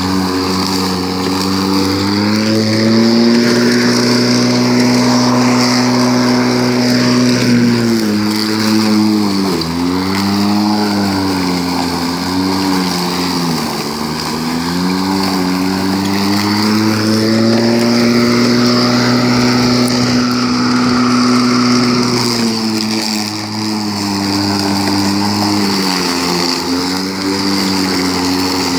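Homelite UT13124 20-inch electric lawnmower running, its motor whine holding a steady pitch and then sagging and wavering twice, about eight seconds in and again past twenty seconds. Each time the motor slows as the blade works through tall, thick grass, then picks back up.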